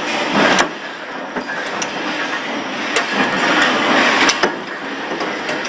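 WH-VI-50 forging machine running: steady mechanical noise broken by sharp metal clanks, the loudest about half a second in and a pair around four and a half seconds.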